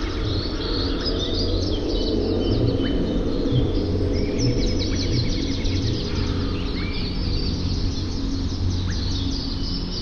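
A chorus of birds chirping, trilling and giving short rising whistles, over soft, steady background music.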